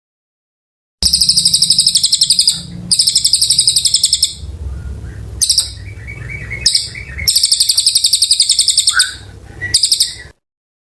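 A cililin bird singing loud, very rapid high trills in several bouts with short breaks between them, over a low hum. It starts abruptly about a second in and cuts off abruptly near the end.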